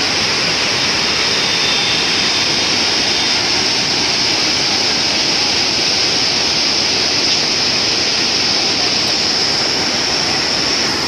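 Parvati River's fast mountain water rushing, a steady and loud roar of whitewater.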